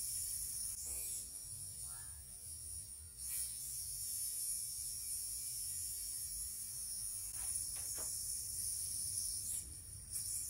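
Steady electrical hum with a high-pitched whine, with a few faint clicks.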